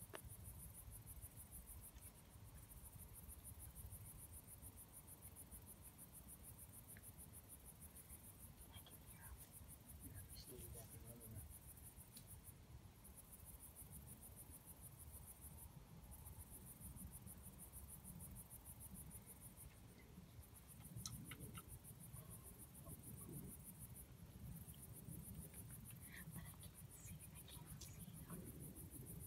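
Faint chorus of insects: a steady, rapidly pulsing high-pitched trill that breaks off briefly a few times.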